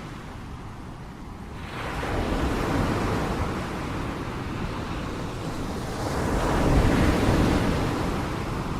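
Ocean waves breaking: a steady wash of surf that swells about two seconds in, with a louder wave breaking around seven seconds in.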